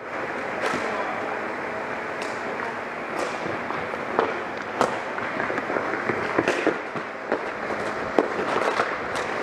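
Ball hockey play: sharp cracks of sticks striking the ball and each other, about a dozen irregular hits, over a steady background hubbub.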